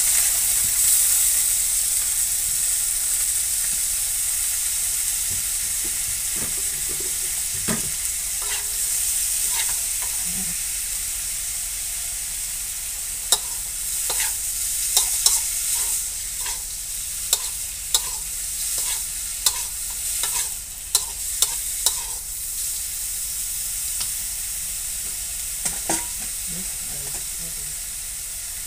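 Mixed vegetables sizzling in hot oil in a wok, the sizzle loudest at first and slowly easing off. About halfway through, a spatula scrapes and clacks against the wok in a run of quick strokes as the vegetables are stir-fried.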